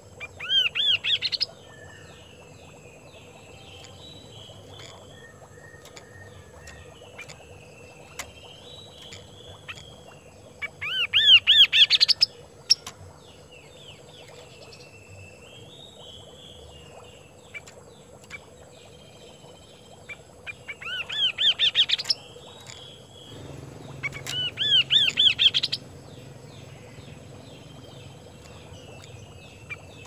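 Kaso-kaso bird singing actively: four loud bursts of fast repeated rising-and-falling notes, each about a second and a half long, near the start, about a third of the way in, and twice close together in the last third, with quieter chattering and warbling phrases between them.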